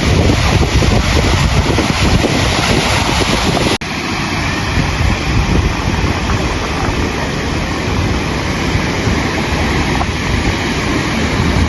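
Wind buffeting the microphone over the steady wash of surf, with a momentary drop about four seconds in.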